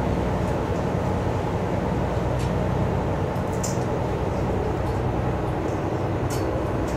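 Cruise boat's engine running steadily, a low even drone heard from inside the passenger cabin, with a few faint ticks.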